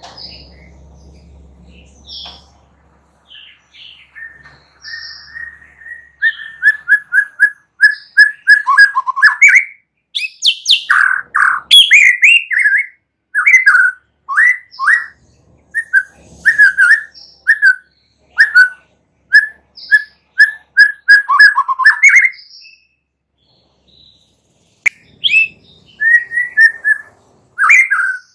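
White-rumped shama singing: a few faint, scattered notes at first, then from about six seconds in a fast run of loud, short repeated notes mixed with higher ones. The song breaks off briefly near the end, then starts again.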